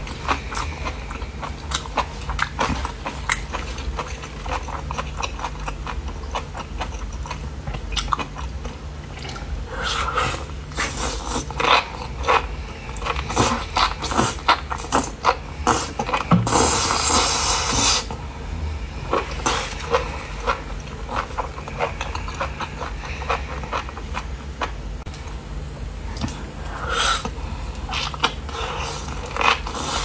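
Close-miked chewing and biting of spicy skewered enoki mushrooms and chili peppers: many short sharp crunchy clicks and wet mouth sounds throughout, with a louder noisy rush lasting a second or two about midway. A steady low hum sits underneath.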